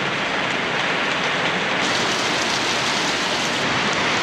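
Heavy rain falling steadily on a boat and the surrounding water, an even hiss that turns brighter for a couple of seconds from about two seconds in.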